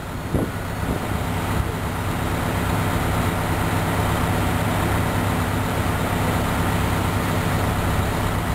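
Fire engine's diesel engine running steadily at a constant pitch, a low hum with a slight rise in loudness over the first couple of seconds.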